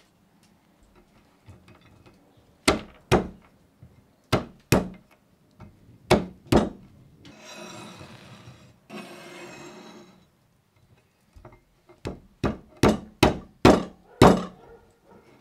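Steel cleaver chopping cashew nuts on a wooden board: sharp knocks of the blade on the wood, mostly in pairs, with a few seconds of scraping noise in the middle and a quicker run of chops near the end.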